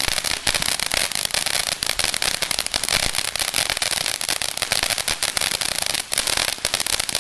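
Sting of the Scorpion consumer firework going off with a dense, continuous crackling of rapid pops.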